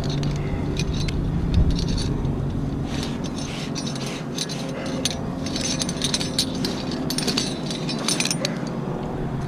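A motor runs steadily in the background while many light metallic clicks, clinks and rattles come and go, busiest in the middle of the stretch.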